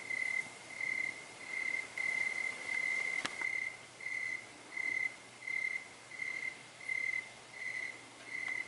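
A cricket chirping in a steady, even rhythm, a little under two high-pitched chirps a second. There is one sharp click about three seconds in.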